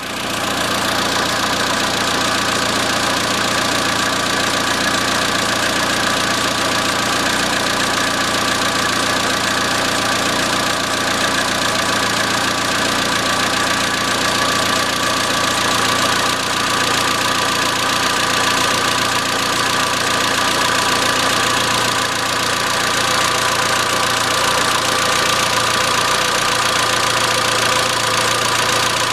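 Peugeot TU5JP4 1.6-litre 16-valve inline-four engine idling steadily with a metallic knocking, which the owner's tags put down to the hydraulic lifters.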